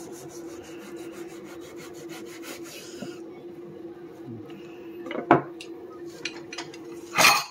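Long kitchen knife sawing back and forth through a raw pork loin on a wooden cutting board, cutting a thick tonkatsu slice, in quick regular strokes for about three seconds. Then a sharp knock about five seconds in and a louder clatter near the end, over a steady low hum.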